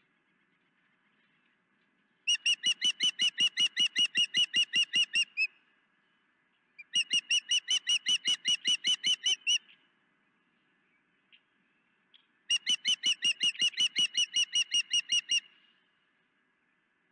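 Osprey calling in three bouts of rapid, evenly repeated high chirps, each bout lasting about three seconds at roughly five notes a second, with short pauses between them.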